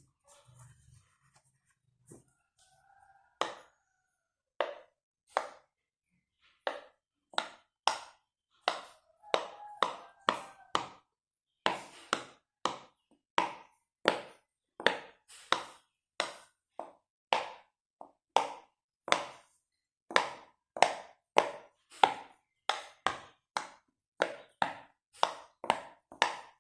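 Silicone pop-it fidget toy bubbles being pressed one after another, each a short sharp pop. They start a few seconds in, about one or two a second, coming faster in the second half.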